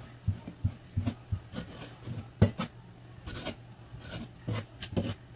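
Kitchen knife scraping and tapping on a wooden chopping board while cutting squid, in irregular strokes, with one louder knock about two and a half seconds in.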